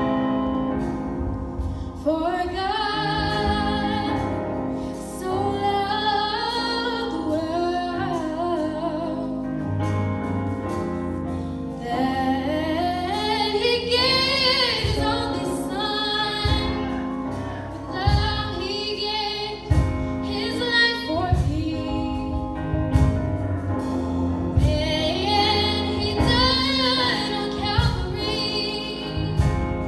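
Female singing in a gospel song over sustained keyboard-style accompaniment, with low drum hits joining in about midway.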